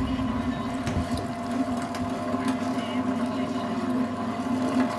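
An 850 W electric meat grinder's motor running with a steady hum.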